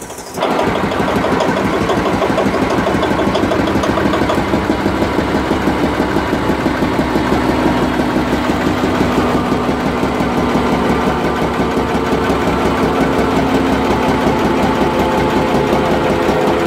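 Witte 10 HP single-cylinder stationary engine running steadily, a fast, even beat of firing strokes with the big flywheel turning.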